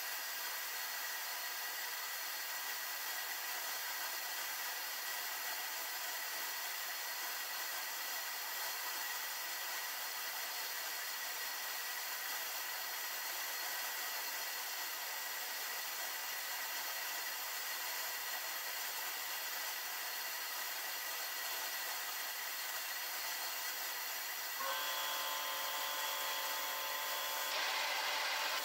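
Vapor blaster nozzle spraying a water-and-80-grit-garnet slurry onto a stainless steel tumbler at 20 psi, a steady hiss. About 25 seconds in it grows slightly louder and a steady tone joins it.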